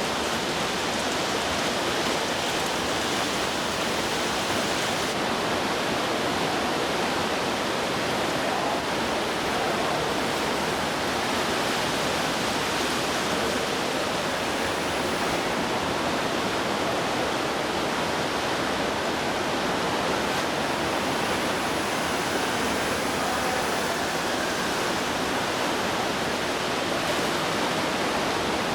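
Heavy rain pouring down steadily, an even rushing hiss with no break.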